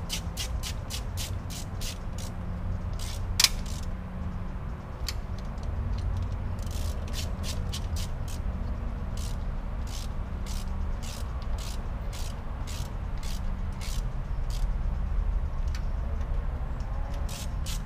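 Ratchet wrench clicking in quick runs of about four to five clicks a second as rocker arm bolts are tightened down, with one sharper click about three and a half seconds in, over a steady low rumble.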